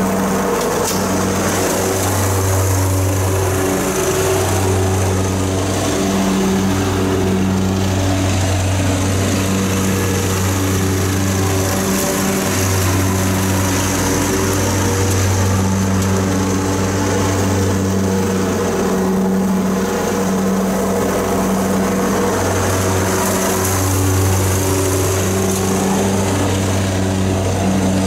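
John Deere Z335E zero-turn riding mower with a rear bag collector running steadily under load, its engine note easing and swelling a few times as it works back and forth across the lawn.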